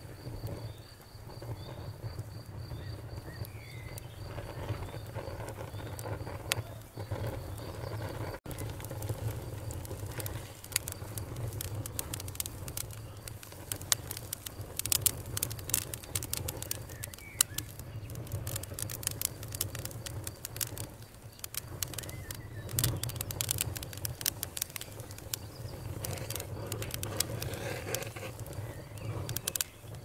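Wood fire burning in a fireplace: a low steady rumble of flame under frequent sharp crackles and pops, coming thickest in the second half. A faint high-pitched trill runs through roughly the first nine seconds.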